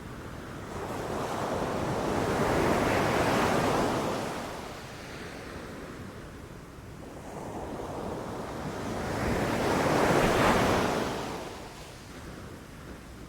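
Ocean waves washing ashore: two slow swells of surf, one peaking about three seconds in and a louder one about ten seconds in, each rising and then draining away.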